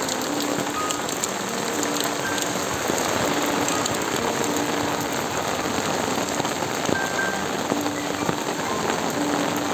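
Steady rain falling, an even hiss with a few scattered drip ticks, under soft background music of short held notes.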